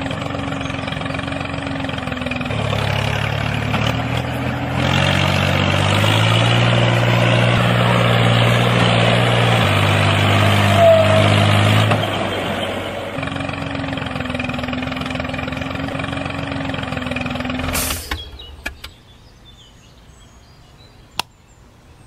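The small motor of a home-made miniature tractor runs with a steady hum. From about three seconds in, a deeper and louder note comes in, strongest about six to twelve seconds in, then eases back to the steady hum. The motor cuts off suddenly near the end, leaving a few faint clicks.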